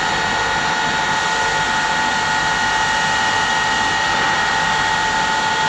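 TACCHI CNC heavy-duty lathe running: a steady mechanical hum and hiss with several fixed whining tones, unchanging throughout.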